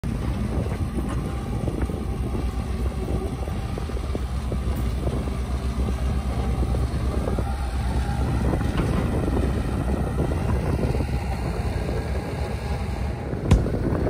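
Kubota tractor's diesel engine running steadily under load as it pulls on a tow rope, with wind buffeting the microphone. A sharp click near the end.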